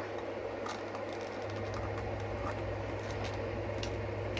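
Steady low hum of room noise, with a few faint, scattered clicks and scratches of things being handled.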